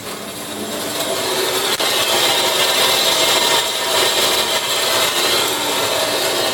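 Roll-In Saw TF1420 band saw running free at 200 feet per minute, its blade and drive making a steady hiss that builds over about the first second and a half, then holds. The blade is not yet cutting.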